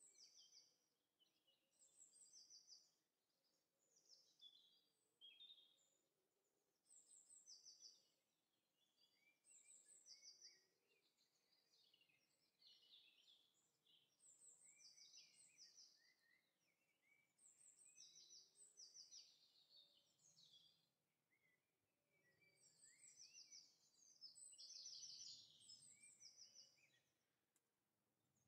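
Faint birdsong ambience: birds chirping and trilling in short phrases, one every second or two.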